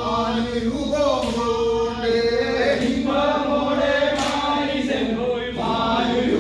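A group of men chanting a Kurumba tribal dance song in unison, in short phrases that repeat about every second and a half.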